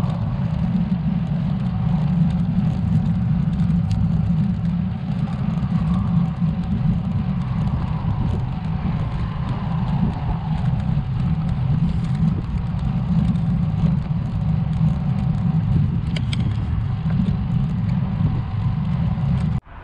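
Wind rushing over the microphone of a camera riding along on a moving road bike, a steady low rumble mixed with tyre noise on the asphalt. It drops away abruptly near the end.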